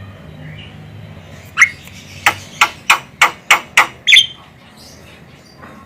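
Javan myna calling: a run of about eight short, sharp, loud calls at roughly three a second, the last one a little longer.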